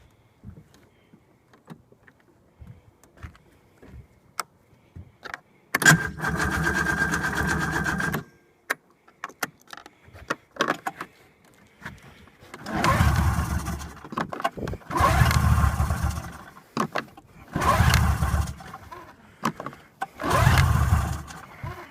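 An engine being cranked on its starter without catching: one long crank of about two and a half seconds, then four shorter cranks with pauses between them. The engine won't fire. Scattered clicks come before the first crank.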